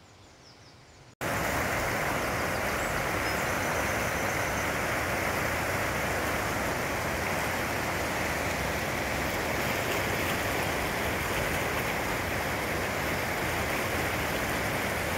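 Shallow rocky mountain river rushing over rapids, a steady, even rushing of water that starts abruptly about a second in.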